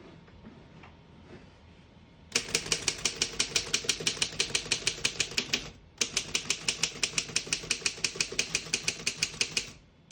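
1923 Underwood No.5 manual typewriter being typed on: keys and typebars strike in a fast, even run of clicks, about seven a second, starting a couple of seconds in, with a short pause midway before a second run.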